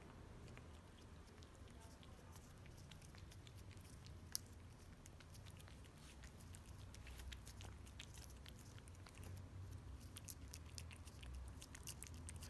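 A kitten licking a creamy cat treat out of a squeeze tube: faint, quick wet licking clicks that come more often in the second half, with one sharper click a little after four seconds in.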